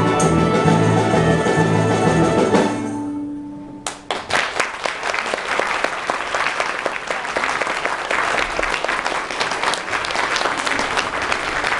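An orchestra holds its final chord, which dies away about three seconds in; about a second later audience applause breaks out and continues steadily.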